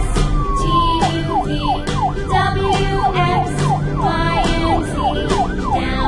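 Police-style siren in a fast yelp, its pitch rising and falling about two and a half times a second, following a long falling wail that ends about a second in, over background music with a steady beat.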